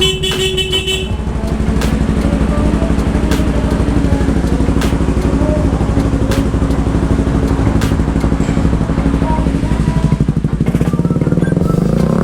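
Kawasaki Rouser NS160 motorcycle horn honks once for about a second at the start, over the bike's single-cylinder engine idling steadily.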